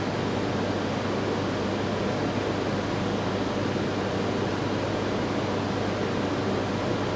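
Steady rushing noise with a low, even hum underneath.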